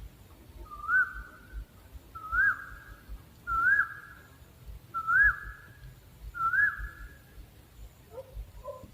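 An owl calling: five short whistled hoots, each rising and then dropping in pitch, repeated at an even pace about every second and a half.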